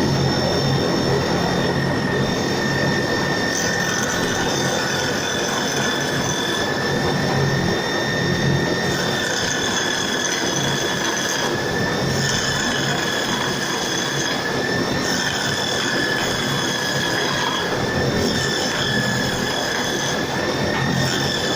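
Electric drill running steadily as the drive motor of a homemade lathe: a constant high motor whine whose pitch dips and recovers slightly every few seconds.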